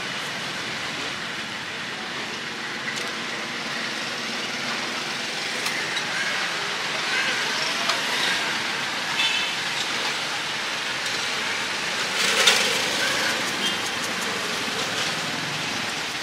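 Street noise: a steady hum of traffic around a roadside stall, with a brief louder noise about twelve and a half seconds in.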